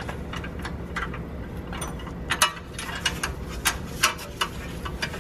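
Scattered sharp metallic clicks and clinks of a 13 mm wrench and socket being fitted and worked on a steering-rack mounting bolt, over a steady low hum.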